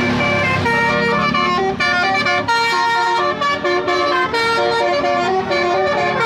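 Bus telolet horn, a multi-tone musical air horn, playing a quick melody of changing notes, with brief breaks between some of them.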